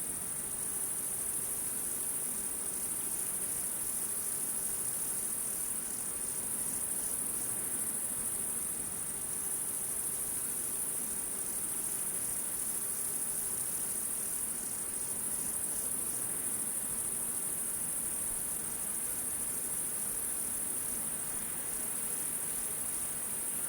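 Crickets chirping in a steady, unbroken high-pitched chorus, with a faint low hum beneath.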